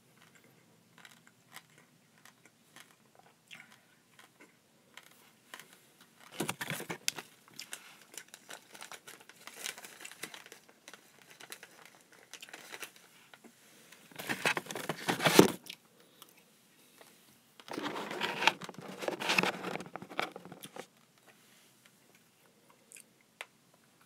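Small clear plastic packet crinkling as it is handled, in about four bursts with scattered small clicks between, the loudest a little past halfway.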